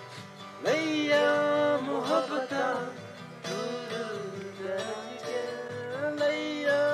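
Music: an acoustic guitar strummed and plucked, with a voice singing long, held notes that comes in with a rising slide about half a second in.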